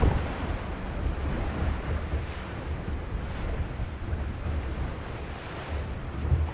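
Wind buffeting the microphone over the steady rush and hiss of water along the hull of a small racing sailboat moving fast under sail.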